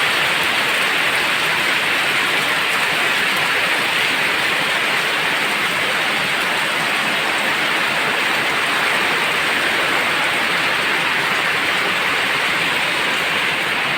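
Heavy, steady downpour: a dense hiss of rain pouring down and hitting the ground and roofs.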